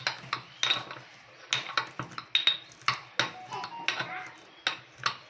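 Roasted peanuts being crushed into coarse pieces with repeated sharp knocks of a kitchen utensil, each with a short ring, irregular at about two or three a second.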